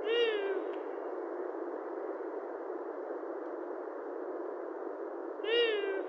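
Long-eared owl calling twice, about five seconds apart. Each call is short, about half a second, rising briefly in pitch and then falling, over steady background noise.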